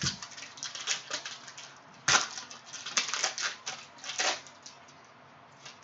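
Foil wrapper of a Panini Prizm trading-card pack crinkling and tearing open in the hands: irregular crackles, with the sharpest rip about two seconds in and further bursts of crinkling near three and four seconds.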